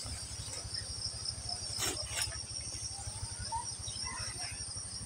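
Steady high-pitched chorus of insects in a garden, with two brief clicks about two seconds in.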